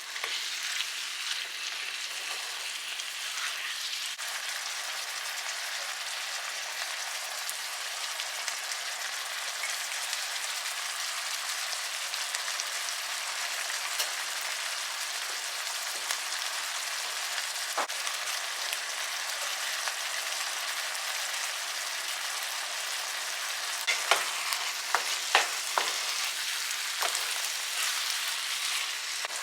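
Tomato stew base with onions frying in palm and olive oil in a pot, a steady sizzle throughout. A few sharp knocks come near the end.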